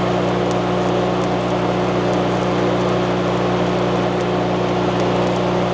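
Stick welding: a steady, unbroken arc crackle as the electrode burns in, over the constant hum of the welding machine. The arc is running smoothly, the bead burning in well.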